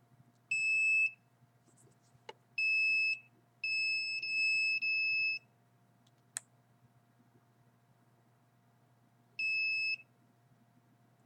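High-pitched electronic beeping from a small piezo beeper, sounding in four bursts: a short one about half a second in, another near three seconds, a longer broken run around four to five seconds, and a short one near the end. The uploader presents it as a detector picking up the microwave scanning he believes is aimed at him.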